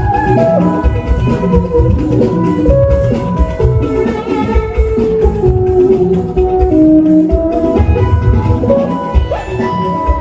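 Jùjú band music: a melodic lead line over drums and percussion.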